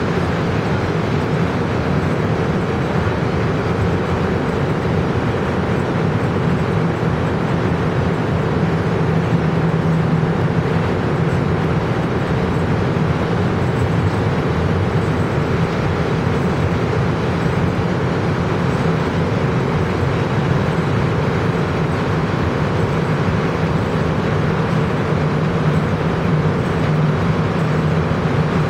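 Steady running noise inside a moving rubber-tyred Montreal Metro car: an even low drone with a hum, unchanging throughout.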